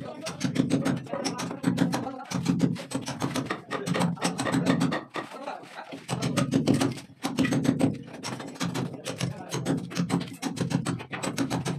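Hammer driving a chisel into a brick wall, cutting a groove: quick metal-on-metal strikes, several a second, in runs with short pauses, with brick and mortar chipping away.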